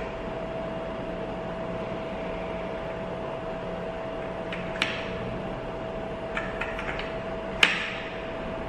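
Cooling fan of a 19-LED wash moving head light running with a steady whir and a steady mid-pitched hum, a fan that is not really quiet. A few sharp clicks come through over it in the second half, the loudest near the end.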